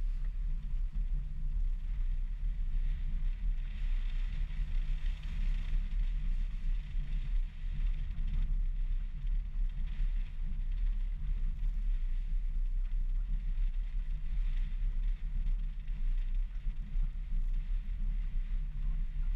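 Wind buffeting a roof-mounted camera's microphone, a low, constantly fluctuating rumble, over the sound of a 2016 Subaru XV driving along a dirt track, with a fainter higher hiss.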